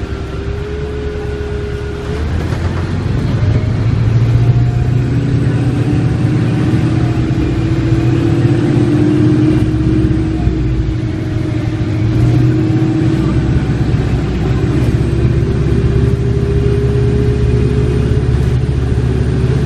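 Detroit Diesel Series 50 engine and Voith DIWA 863.3 transmission of a 1995 New Flyer D40LF bus, heard from inside the cabin under way. It is a deep rumble with a whine whose pitch drops about two seconds in, then climbs slowly as the bus gathers speed.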